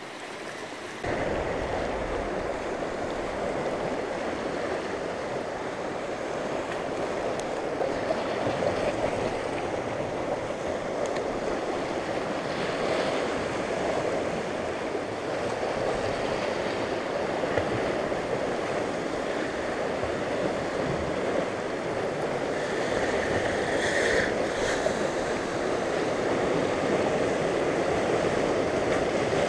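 Sea surf washing and breaking over shoreline rocks: a steady rush of water, louder from about a second in, with some wind on the microphone.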